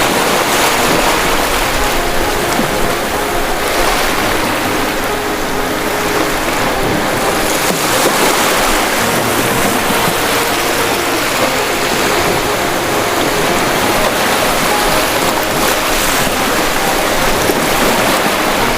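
Ocean surf: waves breaking and washing in a steady, loud rush, swelling now and then every few seconds.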